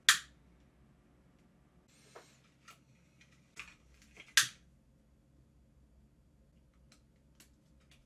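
Sharp clicks and light taps of small plastic and electronic parts being handled and fitted together by hand. A loud click comes right at the start and another about four and a half seconds in, with softer taps between them and a few faint ticks near the end.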